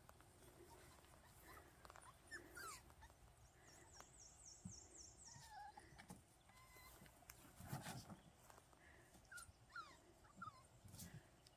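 Faint, scattered whimpers and squeaks from 37-day-old Miniature American Shepherd puppies at play, with a quick run of about seven high chirps about four seconds in.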